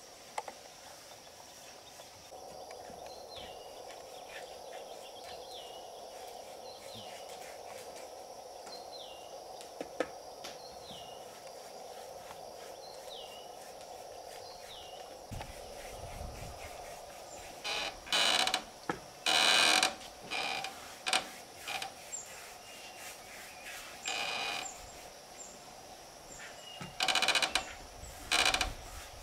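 A bird repeats a short falling whistle about every one and a half seconds over a steady background hum. In the second half, a run of about nine loud, short noisy strokes comes at uneven intervals, typical of hand work with a tool on wood.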